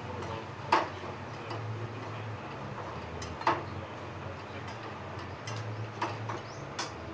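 A stirring spoon knocks sharply against a frying pan about five times, once near the start, once mid-way and three times close together near the end, while gram flour roasts in oil, over a low hum.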